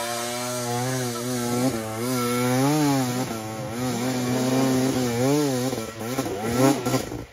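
Off-road dirt bike engine revving up and down under throttle while climbing a steep dirt hill, its pitch rising and falling every second or so. It cuts off suddenly near the end.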